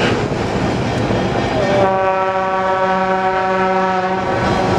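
Narrow-gauge diesel locomotive's horn sounding one steady blast of about two and a half seconds, starting near two seconds in. Under it is the constant running noise of the train rolling along the track.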